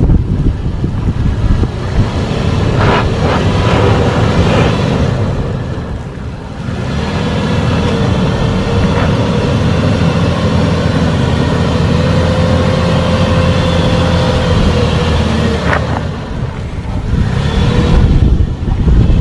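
2011 Toyota 4Runner Trail Edition's 4.0-litre V6 running as it is driven on a rough off-road trail. A steady drone fills the middle, and a few sharp knocks and clunks come through it.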